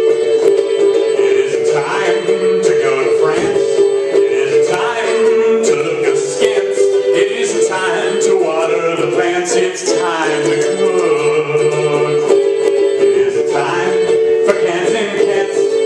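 Live music: a man singing into a headset microphone over a steady, sustained drone tone.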